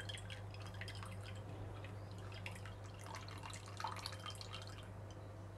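Whey trickling and dripping from a muslin cloth bundle of paneer curds into a glass bowl of whey, a faint patter of drops over a low steady hum: the curds being drained.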